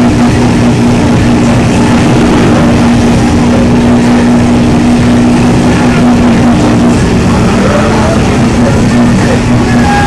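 Pickup truck's engine held at high revs, loud and steady, under heavy load as the truck churns through deep mud with its wheels spinning. The pitch sags briefly about 7 seconds in, then picks up again.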